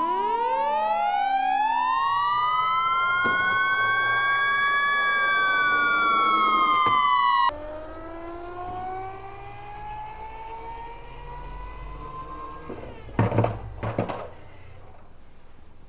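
Siren wailing: a tone sweeps up and holds, then falls, and cuts off suddenly about halfway. A quieter siren tone then slowly rises, with a few loud clicks near the end.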